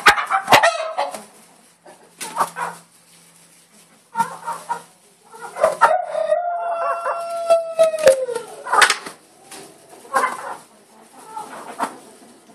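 Chickens clucking in short scattered calls as hens squabble over a worm, with a rooster crowing once, a long call from about six seconds in that falls away at its end after some two and a half seconds. A few sharp knocks sound near the start and again just after the crow.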